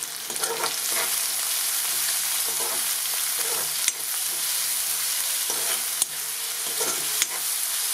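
Chopped onion, green chillies and curry leaves sizzling in hot oil in a metal kadai, frying toward light brown. A steel spoon stirs them, scraping and knocking against the pan several times.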